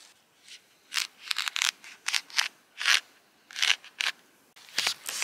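Knife blade scoring birch bark down a small birch trunk: a series of short scraping strokes, starting about a second in, as the bark is cut open for peeling.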